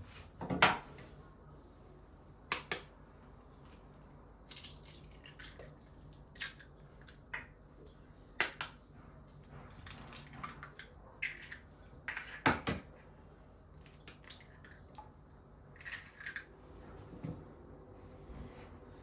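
Dishes and kitchen utensils being handled: irregular clinks, taps and knocks, a dozen or more spread through, the loudest about half a second in.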